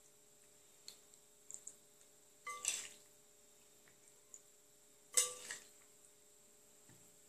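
Spoon clinking against the bowl and muffin tin as macaroni and cheese is spooned into the muffin cups: two louder ringing clinks about two and a half and five seconds in, with a few soft ticks between.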